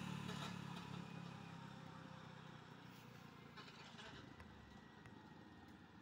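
A road vehicle that has just passed, its engine and tyre noise fading away over the first couple of seconds, leaving near silence with faint distant traffic.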